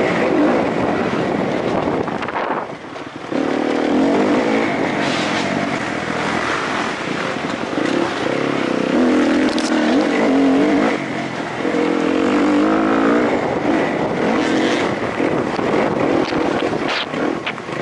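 Single-cylinder four-stroke engine of a Kawasaki KX-F motocross bike, heard onboard, revving up and down with the throttle as it is ridden hard over rough dirt. The throttle is briefly shut about three seconds in, and a few sharp knocks come near the end.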